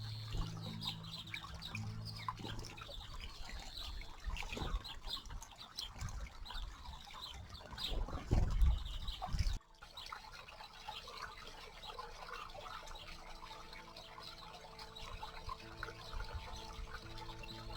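Small birds bathing in a shallow garden stream: splashing water and trickling, with chirps and squawks from the flock. Soft background music runs underneath, and the sound cuts abruptly about halfway through, then carries on.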